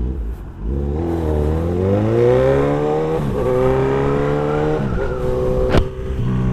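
Motorcycle engine accelerating through the gears. The revs climb, drop at an upshift about three seconds in, climb again and dip at another shift near five seconds, then hold steady. A sharp click comes near the end.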